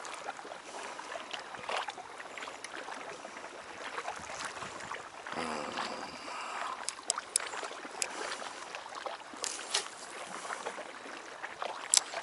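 Small waves lapping and sloshing against a concrete harbour wall, with a few scattered small clicks and one sharp click near the end.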